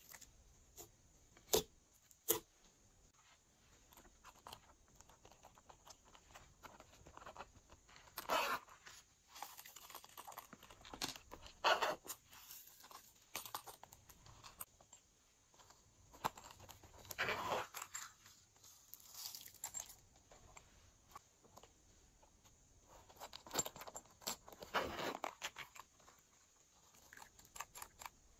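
Close-up handling of glossy slime and plastic trinkets. Two sharp sticky clicks come near the start, then irregular rustling and crinkling bursts as toys and toppings are handled over the slime trays.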